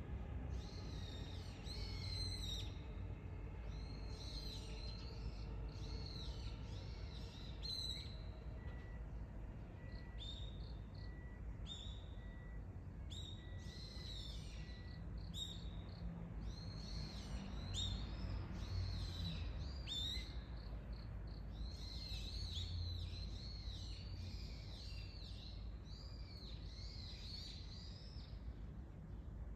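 Small birds chirping and calling over and over, many short quick notes, over a steady low background rumble.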